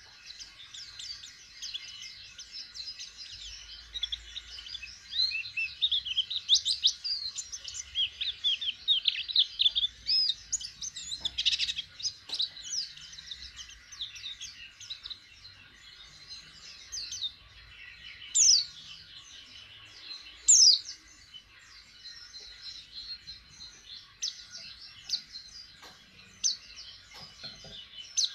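White-eye (pleci) twittering song: a rapid, varied run of high chirps and short trills, busiest in the first half and more scattered later, with two loud down-slurred notes about two seconds apart. It is a young bird just starting to open its beak in song.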